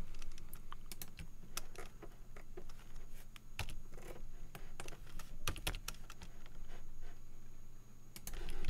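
Irregular clicking of computer keyboard keys as Blender shortcuts are pressed to scale and move a model, over a low steady hum.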